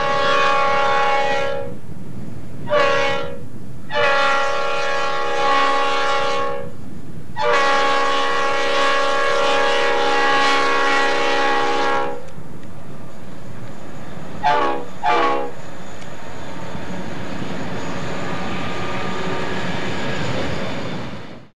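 Diesel freight locomotive's air horn sounding a long blast, a short one, then two long ones, the last held about five seconds. After a pause come two quick short blasts. The train's running noise, with some wheel clatter, goes on under and after the horn.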